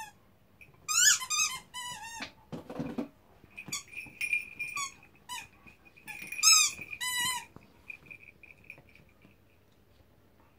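Rubber chicken dog toy squeaking in repeated squeezed bursts as a cocker spaniel bites and chews it. The squeaks grow weaker and stop a little before the end.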